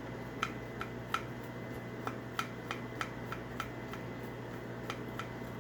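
Light, irregular clicking of small metal parts of an Onity hotel door lock being handled and worked apart, about a dozen clicks, quickest in the middle, over a steady low room hum.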